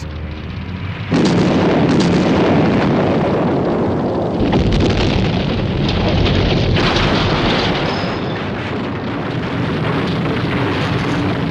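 Explosion sound effects: a low rumble, then a sudden loud blast about a second in that carries on as a long roar, with a second burst of noise near seven seconds in.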